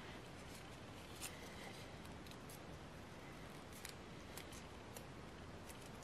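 White origami paper crinkling and crackling in the fingers as an origami crane's head and neck are folded and pinched: scattered short, sharp crackles over a faint steady hiss.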